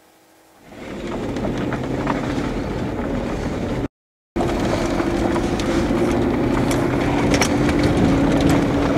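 Steady mechanical noise with a low hum and scattered rattling clicks, fading in about a second in and broken by a brief cut to silence near the middle.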